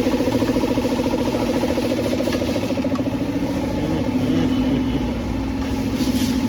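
An engine idling steadily with a fast, even pulse, its pitch sagging slightly about four seconds in.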